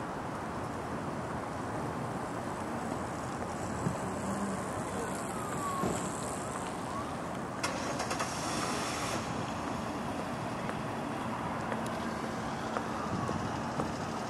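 Steady rumble of distant road traffic, with a few faint clicks and knocks.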